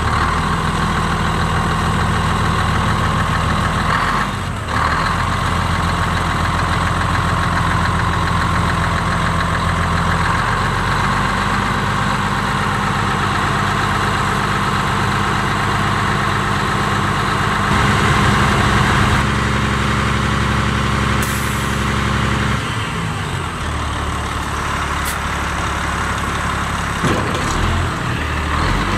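Diesel engine of a 2001 Peterbilt 388 dump truck (10.3-litre) running just after start-up, mostly at idle, with its engine speed shifting up and down several times. Near the end the truck begins to pull forward.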